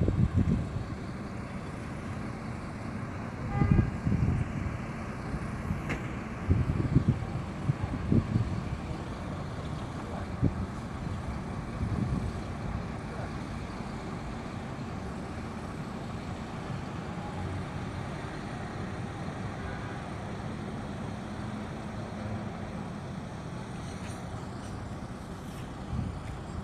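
Large buses' engines running and moving past in a busy terminal area: a steady low rumble that swells louder a few times, about four seconds in, around seven to eight seconds and near twelve seconds.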